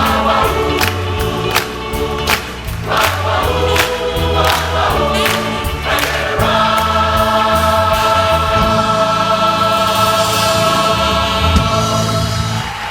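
Large mixed choir of about 400 voices singing a 1960s California pop medley over drums and bass. From about six seconds in, the choir holds one long closing chord that ends just before the end.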